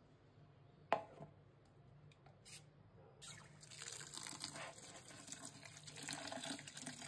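A single knock about a second in, then water running from a tap and splashing, starting about three seconds in.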